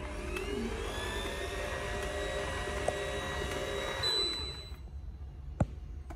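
Tefal ZC420 slow juicer's motor running its self-cleaning cycle: a steady whirr with a high whine that rises as it gets going, then winds down and stops about four seconds in. A single sharp click near the end.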